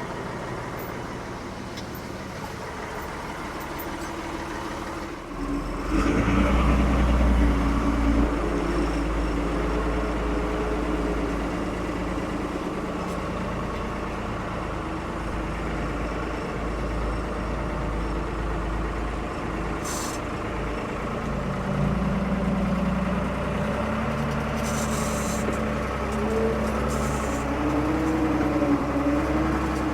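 Ford 550 backhoe's diesel engine running, picking up and getting louder about five seconds in, its pitch sagging and recovering as the hydraulics take load. A few short metallic clicks are heard later on.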